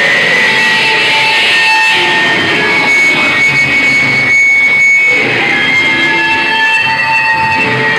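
Loud live rock band playing: distorted electric guitar over a dense wash of amplified noise, with long ringing feedback tones that come and go.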